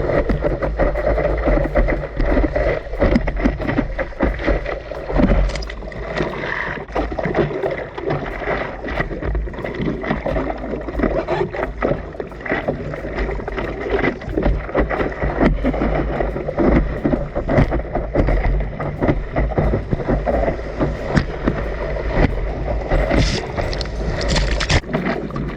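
Sea water splashing and sloshing up close, with a continuous low rumble and many small irregular splashes.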